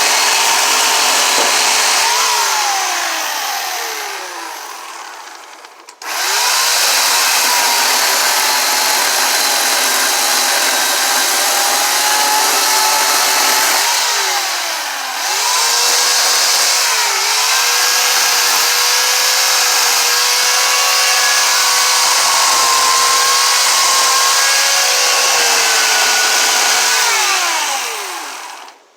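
Gas chainsaw running and cutting into wood, its engine pitch dipping under load and climbing again. It dies away about two to six seconds in, runs again, and stops near the end.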